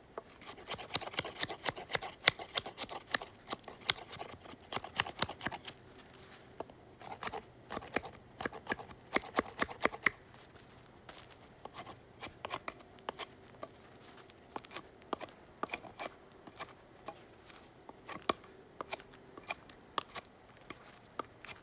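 Terava Skrama knife blade shaving and scraping bark off a pine baton: a rapid run of short, sharp rasping strokes, dense for about the first ten seconds, then sparser and quieter.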